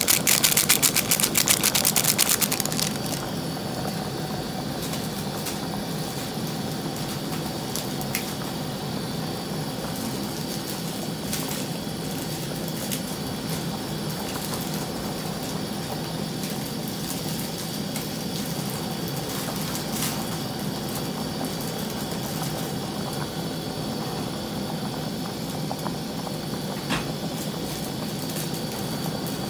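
Pot of soup at a rolling boil, bubbling steadily with a constant low hum. For about the first two and a half seconds, something poured into the boiling pot adds a louder rapid crackling, which then stops.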